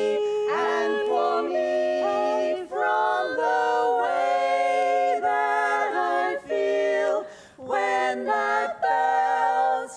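Women's barbershop quartet singing a cappella in close four-part harmony, holding chords that shift every second or so, with a brief breath break about seven and a half seconds in.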